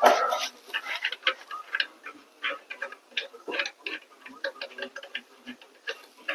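Irregular metal clicking and clinking of a long wrench working a bolt loose on a motorcycle's rear wheel assembly, several small clicks a second.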